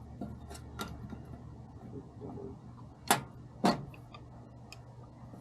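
A few light clicks, then two sharp knocks about half a second apart, then more faint clicks: hard objects being handled and set down, over a steady low hum.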